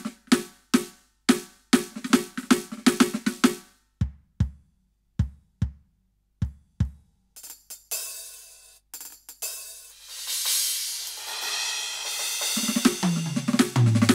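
Roland TD-17KVX electronic drum kit played through its module. It opens with fast snare and tom strokes, then five separate bass drum kicks, then a swelling cymbal wash, and a tom fill with falling pitch near the end.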